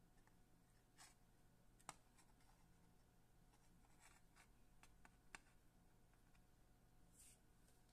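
Near silence with a faint steady hum, broken by scattered soft clicks and rustles of fingers handling fly-tying materials and thread at the vise, the sharpest click about two seconds in.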